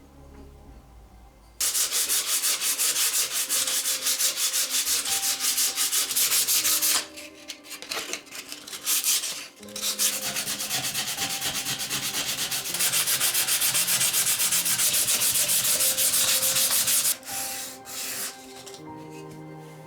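Hand sanding with sandpaper: fast back-and-forth scraping strokes, in two long spells with a short broken pause between them.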